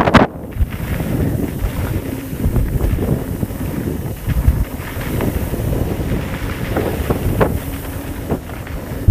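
Wind buffeting the microphone: a loud, uneven low-pitched noise with no steady tone, and a sharp knock right at the start.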